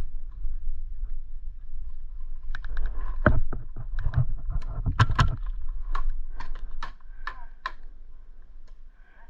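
Airsoft gunfire: irregular sharp snaps and clicks, thickest from about two and a half to eight seconds in, over a steady low rumble on the microphone.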